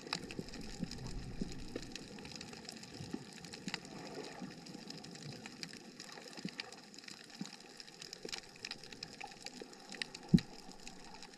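Underwater reef ambience: a steady hiss thick with small, irregular crackling clicks. About ten seconds in there is one sharp, loud low thump.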